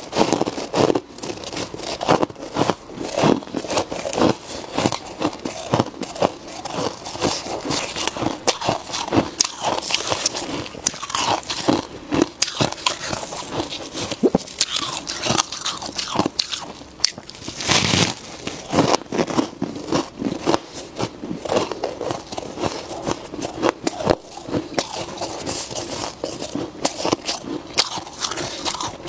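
Freezer frost being bitten and chewed close to the microphone: rapid, crisp crunches one after another, with an especially loud crunch about eighteen seconds in.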